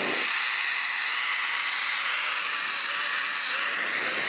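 Zipline trolley's pulleys running fast along the steel cable: a steady high whirring hiss that rises slightly in pitch near the end.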